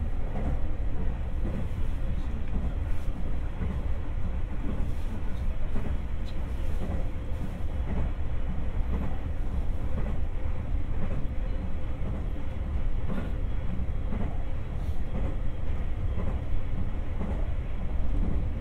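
Running sound inside the passenger car of an electric commuter train travelling between stations: a steady low rumble of wheels and running gear, with a few faint clicks.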